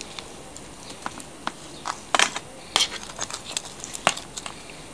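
Metal fork and spoon clicking and scraping against a disposable aluminium foil baking tray as roast chicken pieces are lifted and shifted. The clinks and crinkles are irregular, with the loudest about two seconds in and again a little later.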